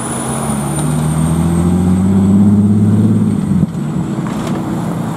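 Diesel engine of a concrete mixer truck pulling away under load, its pitch climbing steadily, then falling away sharply about three and a half seconds in. After that a quieter engine runs on as a pickup truck comes up close.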